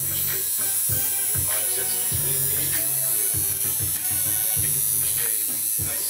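Electric tattoo machine buzzing steadily as it works into skin, with background music that has a steady beat.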